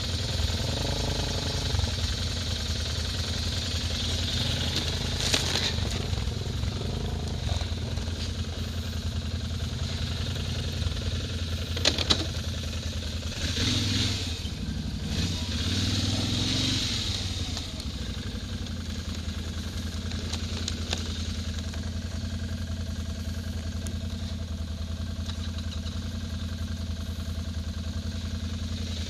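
Quad (ATV) engine running steadily. Its pitch rises and falls in the middle as it changes speed, with a couple of sharp knocks about twelve seconds in.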